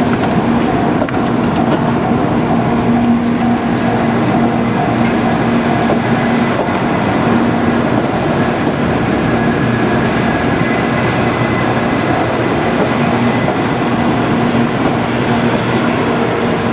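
Doctor Yellow 923-series Shinkansen inspection train running past, a steady noise of wheels and running gear with a low hum that comes and goes.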